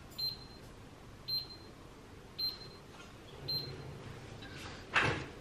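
Four short, high electronic beeps about a second apart, then a kitchen drawer pushed shut with a knock near the end.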